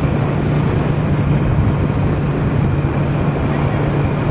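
A motor vehicle's engine running at a steady pitch on the move, its low hum under heavy wind rushing over the microphone.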